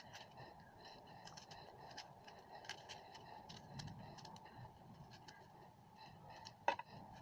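Faint scattered clicks and light scrapes from small objects being handled, over a low steady hum, with one sharper knock near the end.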